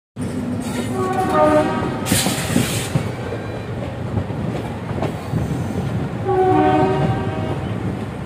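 Locomotive horn sounded in two blasts, each about a second and a half long and made of several tones at once, over the rumble and clatter of a moving train. A brief hiss comes about two seconds in.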